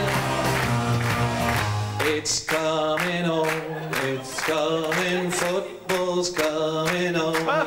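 A man singing into a handheld microphone over a backing track with a steady beat.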